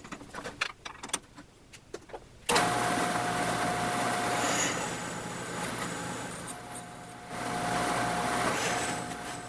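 Light clicks and rattles of a bit being fitted in a drill chuck, then a drill press motor switches on about two and a half seconds in and runs steadily while a small twist drill bores into an aluminum plate, with a steady whine that comes and goes.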